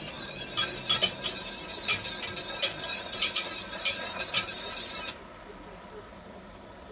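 Wire whisk stirring a hot milk mixture in a stainless steel pot, its wires clicking rapidly against the metal. The whisking stops about five seconds in, leaving only a faint steady hum.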